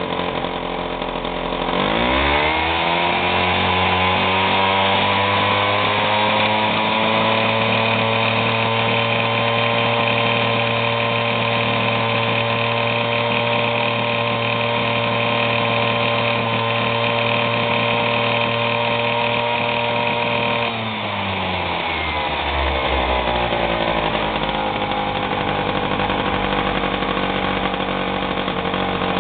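Piaggio Ciao PX moped's small single-cylinder two-stroke engine, fitted with a reworked piston, revved from fast idle to full throttle about two seconds in and held steady near its top speed of about 7,000 rpm. The throttle closes after about 19 seconds, and the revs sink back gradually to a fast idle of roughly 2,500–2,700 rpm with the transmission turning.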